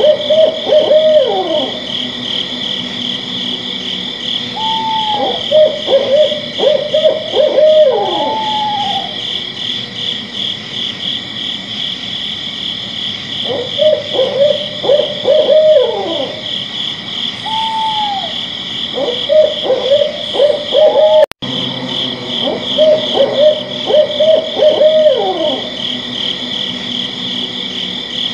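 Owl hooting in repeated runs of short notes, some sliding down in pitch, over a steady pulsing chorus of night insects. The sound cuts out for an instant about 21 seconds in.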